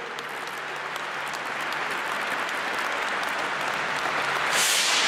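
Crowd applauding as a rider walks onto the stage, the clapping slowly building, with a short hissing rush about four and a half seconds in.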